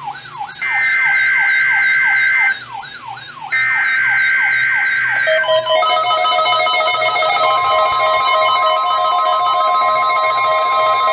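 NOAA Weather Radio emergency alert test: warbling bursts of data tones from the SAME alert header, over a siren-like tone that sweeps down about three times a second from weather alert receivers set off by the test. From about six seconds in, steady alarm tones take over, and the steady 1050 Hz warning alarm tone starts about seven and a half seconds in.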